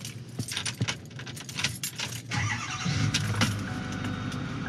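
Keys jangling at the ignition, then the 2008 Ford F-250 Super Duty's 6.4-litre Power Stroke V8 turbodiesel starts about two and a half seconds in and settles into a steady rumbling idle, heard from inside the cab.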